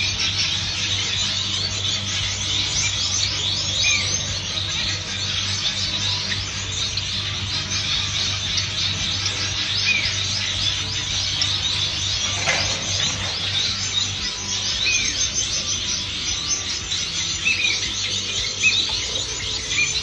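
Many caged finches chirping at once: a dense, steady chorus of short high calls, over a steady low hum.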